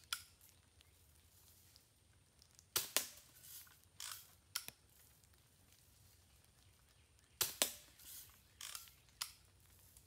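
Daisy Buck 105 spring-air BB rifle fired twice, about four and a half seconds apart. Each shot is a sharp snap followed a fraction of a second later by a second snap, the BB striking the paper target and its board. A few softer clicks follow each shot.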